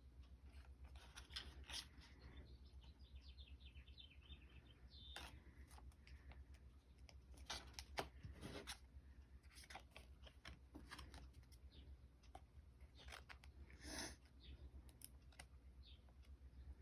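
Faint rustling and scattered light clicks of thin plastic card sleeves and Pokémon trading cards being handled, over a steady low hum.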